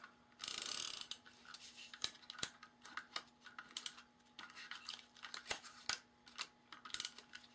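Paper handling: a short rustle of paper being slid into place, then scattered small clicks and taps as strips of patterned paper are pressed down onto a cardstock card.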